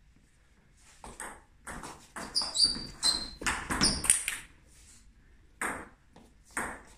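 Table tennis ball clicking off bats and table in a rally: a fast run of hits through the middle, then single hits near the end.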